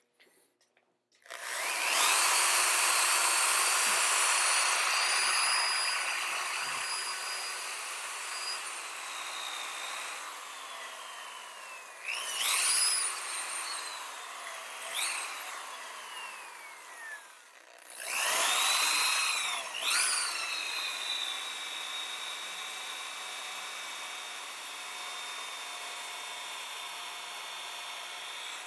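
Corded electric drill spinning a wire brush against a Model T magneto field coil's flat copper winding strip, scrubbing it clean. It starts about a second and a half in with a high whine, slows and is revved up again several times in the middle, then runs steadily.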